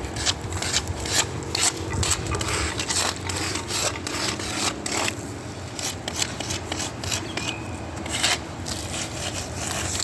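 Irregular rasping and scraping strokes, rough and uneven, over a continuous gritty noise.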